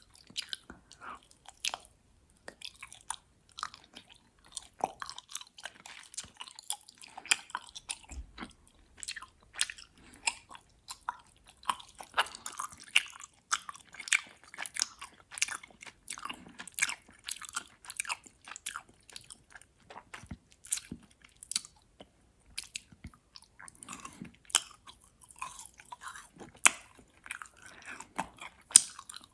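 Close-miked chewing of gummy worms: a rapid, dense run of sticky, wet mouth clicks and smacks as the chewy candy is bitten and worked.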